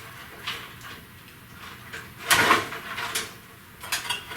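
Headlight wiring connectors clicking and clattering as they are worked loose from the harness by hand, with one louder clatter about halfway through and a few lighter clicks around it.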